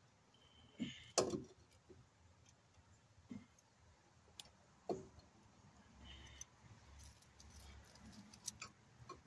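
Faint, scattered clicks and knocks at uneven intervals, the sharpest about a second in: hand tools and metal parts being handled during wheel hub work.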